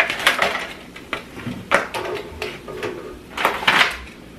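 Wire fry basket clattering against a disposable aluminium foil pan as fried fish fillets are tipped and shaken out of it: a few bursts of sharp metallic knocks and rattles, near the start, about two seconds in and again past three seconds.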